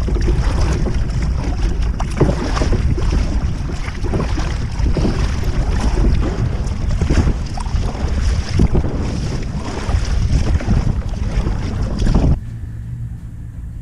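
Wind buffeting the kayak-mounted microphone over water splashing and slapping against a kayak hull as it is paddled through choppy sea. The noise cuts off suddenly near the end, leaving a much quieter background.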